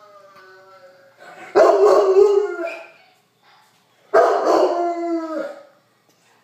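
Bernese mountain dog howling twice, two loud drawn-out calls each lasting about a second, in answer to a recording of its own howl playing faintly from a phone speaker.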